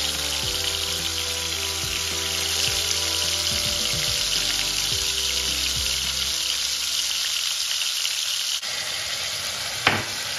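Marinated chicken pieces sizzling steadily as they fry in hot ghee in a kadai, with a single knock near the end.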